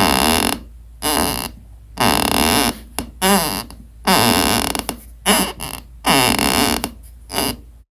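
Squeaky wooden floorboards creaking under weight: a string of about ten separate creaks, each under a second, some with a wavering or sliding pitch.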